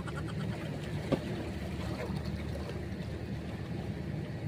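Steady low drone of a boat engine, with a faint click about a second in.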